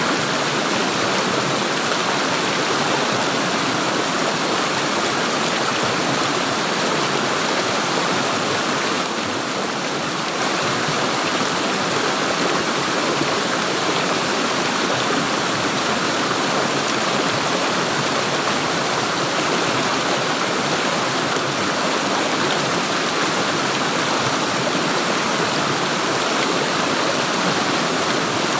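Running water gurgling and rushing steadily, with a slight drop in level about nine seconds in.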